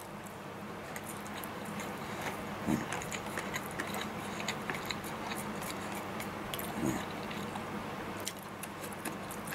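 A person chewing a mouthful of rice with fried tofu and green pepper, with many small mouth clicks; two brief, soft low sounds come about three and seven seconds in.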